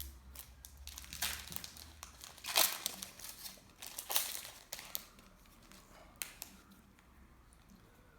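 Crinkling and rustling of trading-card pack wrappers being handled, in a run of crackly bursts over the first five seconds, the loudest two near the middle, then dying away.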